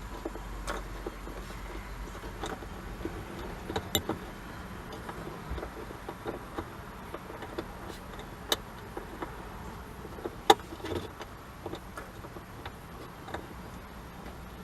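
Scattered light clicks and taps of a small screw being fitted by hand to secure a car's trunk light switch, with a few sharper ticks, the loudest about ten and a half seconds in.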